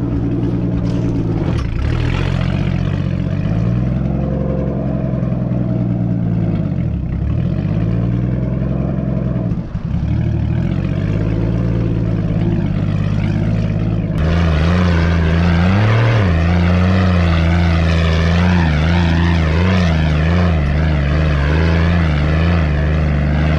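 Nissan 240SX's swapped RB20DET turbocharged 2.0-litre straight-six running at low revs while crawling over a rocky trail, the engine note dipping and rising with the throttle several times. About halfway through it gets louder and the pitch wavers quickly up and down.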